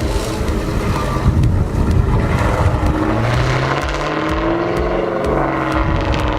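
Car engine running and revving, its pitch rising for a moment partway through.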